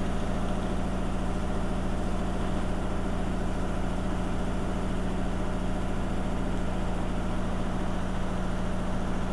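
Washing machine in its final spin, the drum spinning with a steady hum and holding its speed instead of stepping up to top speed.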